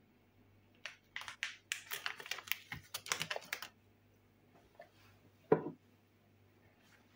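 Metal spoon tapping and scraping against a glass bowl in a quick run of light clicks for about three seconds as chili powder is knocked off it onto flour, then a single louder knock a couple of seconds later.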